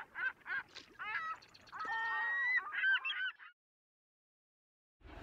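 Geese honking: a quick run of short calls, then a few longer wavering ones, cutting off abruptly about three and a half seconds in.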